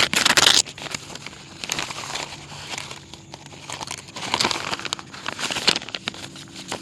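A flat paper mail package being torn open by hand, its paper crinkling and rustling in irregular bursts.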